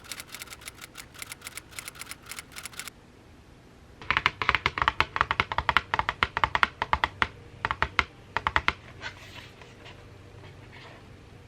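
A rapid run of small crisp clicks that stops about three seconds in. A second, louder and denser run follows from about four seconds in until nearly nine, then only a faint rustle.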